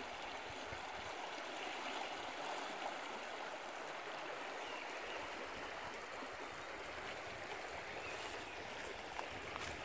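Steady rushing of the Orne river running high in flood, its water about a metre above the usual level after a week of heavy rain.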